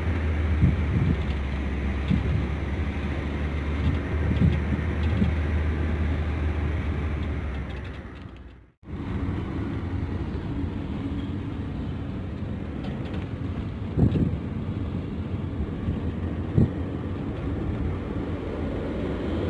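Steady road and engine noise heard inside a moving car, a low rumble with a few short knocks. It fades out briefly a little before halfway, then comes back.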